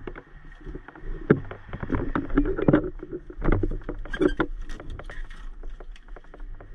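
Handling noise as gloved hands move and stow a ZOLL cardiac monitor/defibrillator and its carry case: irregular knocks, clicks and rustles.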